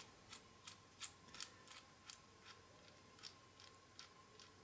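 Faint, uneven clicking, about three a second, from a hand pin vise as its small bit is twisted by hand into a small plastic part, opening a hole of about 1.7–1.8 mm for a 2 mm screw.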